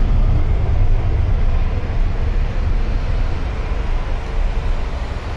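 Jet airliner's engines running at takeoff power, a loud low rumble that slowly fades as the aircraft departs, mixed with passing road traffic.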